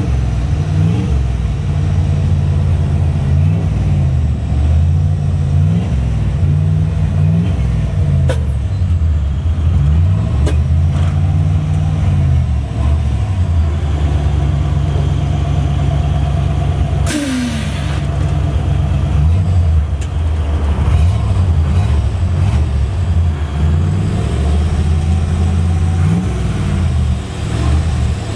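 1950 Chevy pickup's engine idling and being revved up and down again and again, which spins the engine-driven compressor to refill the air-ride tank. About two-thirds of the way in there is a one-second hiss of air from the air suspension, with a few sharp clicks before it.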